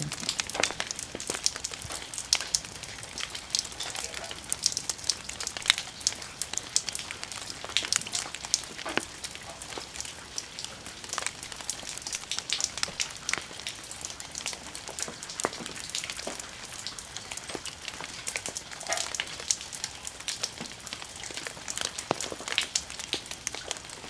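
Water drops falling into a garden pond: an irregular patter of small, sharp ticks and plinks, several a second.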